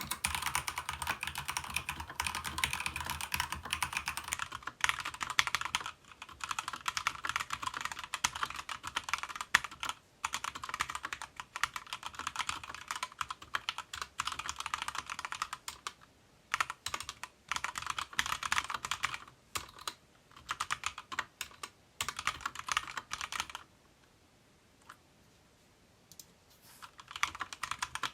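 Fast continuous typing on a Keychron K2 V2 hot-swappable mechanical keyboard with stock Gateron Red linear switches, double-shot ABS keycaps and a foam-modded plastic case: rapid keystroke clacks with brief breaks, and a pause of about three seconds near the end before typing resumes.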